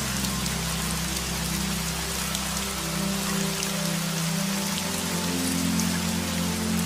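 Steady rain falling, with soft music of low held notes that change slowly underneath.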